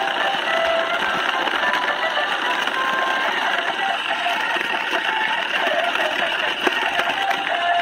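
Remote-control toy school bus driving: its small electric drive motor and gears whir steadily while its built-in speaker plays an electronic song, short notes stepping up and down in pitch.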